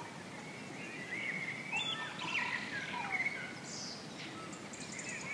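Several small birds chirping and whistling in quick, overlapping calls over a steady background hiss.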